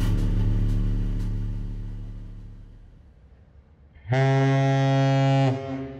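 Background music fading out, then a single steady, deep horn blast lasting about a second and a half that starts and stops abruptly.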